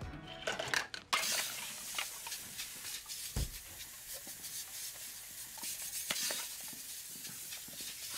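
Music stops about a second in, leaving a steady hiss with scattered small clicks and rustles and one low thump.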